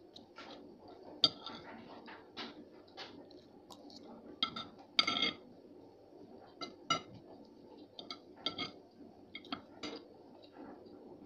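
Metal spoon and fork clinking and scraping against a ceramic dinner plate while eating, a dozen or so sharp clinks at irregular intervals, the loudest about a second in and a ringing cluster around five seconds in.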